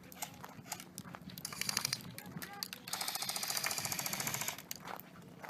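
Airsoft electric gun firing full-auto: a short burst, then about a second later a longer burst of rapid, evenly spaced shots lasting about a second and a half.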